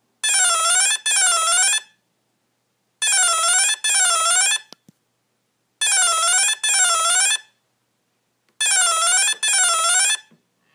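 Hitec Energy Sport brushless ESC programming tone: a pair of swooping beeps, each dipping then rising in pitch, repeated four times about every three seconds. It is the signal for the Acceleration: Soft setting.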